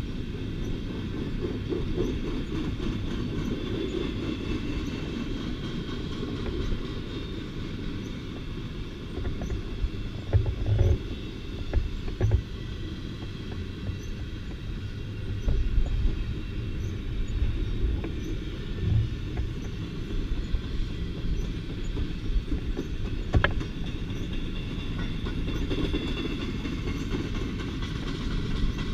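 Empty intermodal well cars of a CSX container train rolling past: a steady rumble of wheels on rail, broken by irregular clanks and thumps from the cars, with a faint high wheel squeal now and then.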